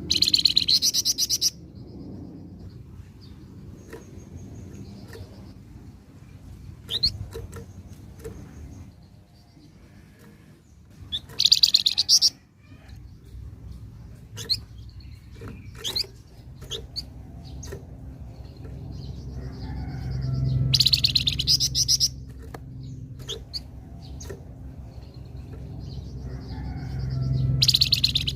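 Flamboyan songbird singing: four loud bursts of rapid, buzzy chattering song, with softer scattered chirps between them and a low hum underneath.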